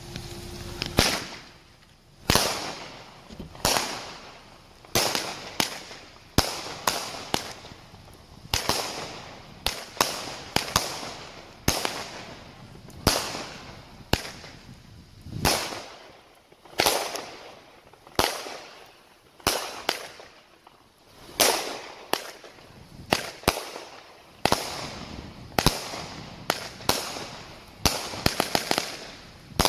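Phantom Fireworks Astral Galaxy, a 25-shot 200-gram consumer firework cake, firing shot after shot: a steady run of sharp bangs about one a second, with a quick cluster of bangs near the end.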